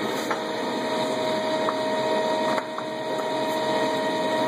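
Lodge & Shipley engine lathe running with a steady whine, a few light clicks over it.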